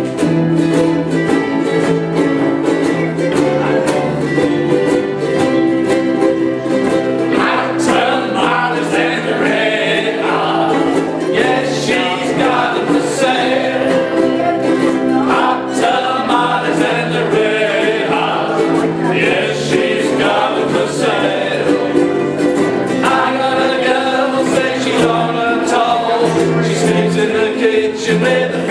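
A large ukulele ensemble strumming chords to a steady beat, with many voices singing together in unison coming in after about seven seconds.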